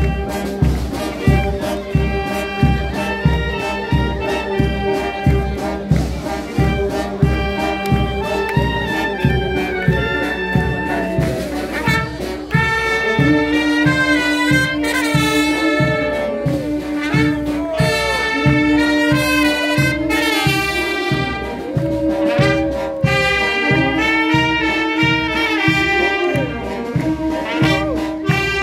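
A street brass band of clarinets, saxophones and sousaphone playing a lively tune with a steady beat. About 12 seconds in the music changes, with long held notes over the beat.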